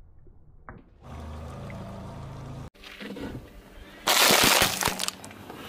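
A car tyre rolls onto a clear plastic tub of cookies and crushes it: a loud crackling crunch of plastic and biscuits lasting under a second, about four seconds in. Before it, a steady low hum with some water sounds.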